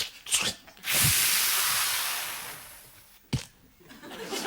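A man imitating a shower's spray with his mouth into a microphone: a hiss that starts abruptly about a second in and fades away over about two seconds, followed by a single sharp click.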